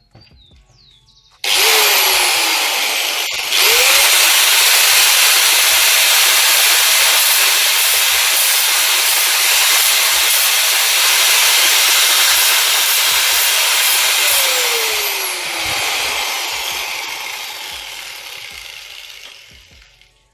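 Handheld electric power tool sanding steel bicycle-frame welds: it switches on about a second and a half in, stops and restarts almost at once, runs steadily, then is released and winds down over several seconds near the end.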